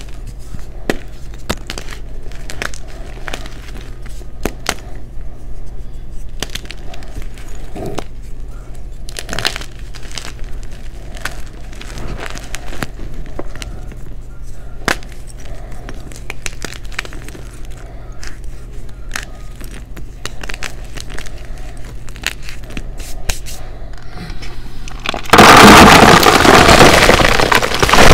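Hands crushing blocks of gym chalk in a tub of loose chalk powder: scattered crunches and crackles over a low hum. About 25 seconds in, a sudden loud, dense rush as the chalk powder is poured out.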